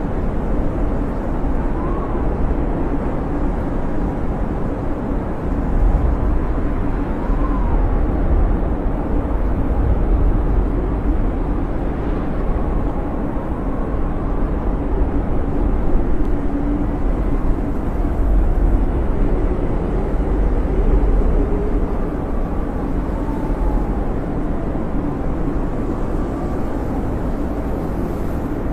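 Blizzard wind blowing steadily with a deep rumble, and faint whistling tones that rise and fall now and then.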